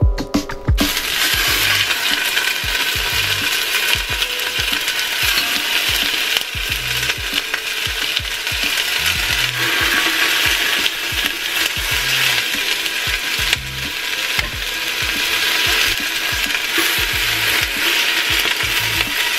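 Chicken drumsticks sizzling and crackling in hot oil in a pot as they are browned, with clicks, scrapes and knocks from a metal spatula moving them against the pot.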